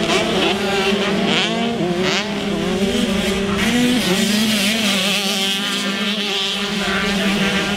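Several 125cc two-stroke motocross bikes racing, their engines overlapping and revving up and down over and over as the riders work the throttle through the turns.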